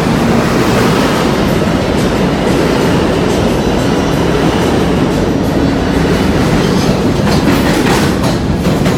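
R160 subway train departing the station, its cars rumbling close past with wheels clacking over the rail joints. A run of sharp clacks comes near the end as the last car goes by.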